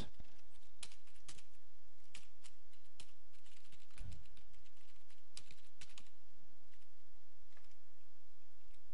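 Computer keyboard typing: irregular, quick keystrokes with short pauses between runs, over a steady low hum.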